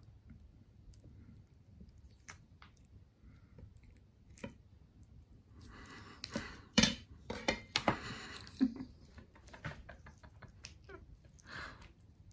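Skin being peeled off a Japanese flying squid with fingers and a kitchen knife on a wooden cutting board: quiet wet, sticky clicks and squelches. A busier run of sharper clicks and scraping comes in the middle. The skin is clinging and not coming away easily.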